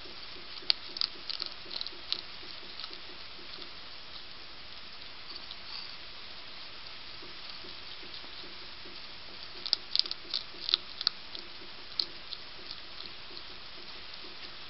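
European hedgehog crunching dry food pellets from a plate, sharp crunches in a burst near the start and another around ten seconds in, over a steady hiss.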